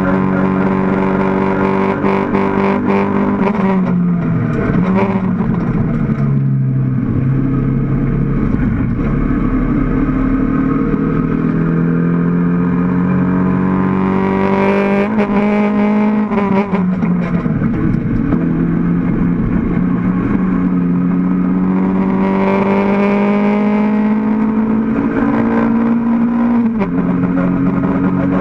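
A mid-engined Mk1 Toyota MR2 race car's engine, heard from inside the stripped cabin, running hard with its pitch climbing slowly as the car accelerates. The pitch drops sharply about four seconds in and again about halfway, as the driver lifts and changes down for corners, and drops once more near the end at a gear change.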